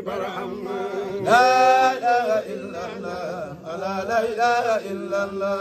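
A man chanting devotional verse in long, drawn-out melodic phrases, loudest on a held note about a second and a half in.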